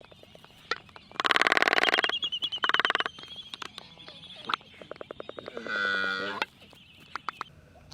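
A bird's unusual calls: two loud, rapid rattling bursts, a thin high trill, then a lower, pitched call lasting under a second, with scattered clicks between.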